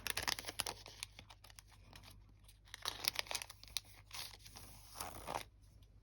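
Crinkling and rustling of packaging as a pack of washi stickers is handled and opened, in several short rustles with crackles.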